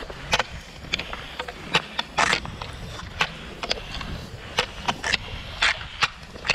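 Cross-country ski poles planting in thin snow over a paved path, making short sharp clicks and scrapes about twice a second, with the skis swishing over the snow under a low rumble.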